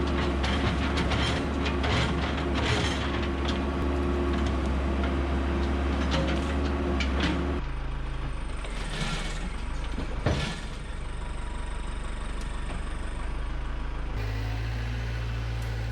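Backhoe's diesel engine running steadily, with clatter and rattles from the machine. The engine sound changes abruptly about halfway through and again near the end, and there is one sharp knock about two-thirds of the way in.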